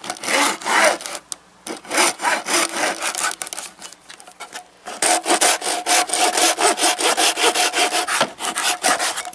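Hand saw cutting through an old plastic and rubber VR6 PCV breather hose assembly, back and forth. The first strokes are uneven and halting; from about five seconds in they turn quick and even until the cut is finished.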